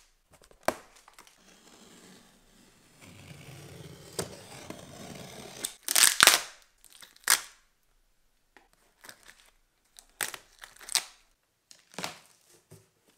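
Plastic packing tape being torn off a large cardboard box: a long rasping peel, then loud rips about six seconds in and again a second later. After that come scattered short crinkles and knocks of the cardboard being handled.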